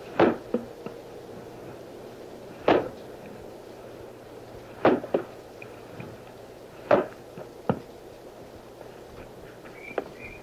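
A maul striking wooden wedges to split a driftwood stump: a sharp, loud wooden knock about every two seconds, five blows in all, some followed by a lighter knock.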